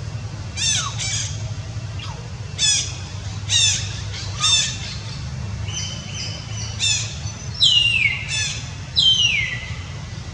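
A series of about nine short, high, squawking animal calls, each falling in pitch, the last few near the end the loudest and longest, over a steady low hum.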